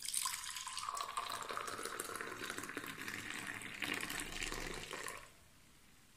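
Milky masala tea poured in a thin stream from a height into a clay mug, splashing and frothing as the mug fills. The pour stops about five seconds in.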